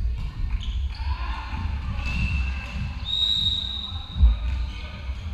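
Referee's whistle blown once, a steady high note lasting about a second and a half, over low thuds in a large hall. A single heavy thump, the loudest sound, comes near the end of the whistle.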